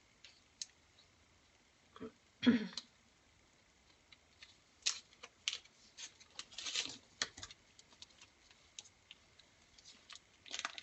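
Scattered clicks and short rustles of a whole raw chicken's plastic wrapping being cut and pulled off, with one louder clatter about two and a half seconds in.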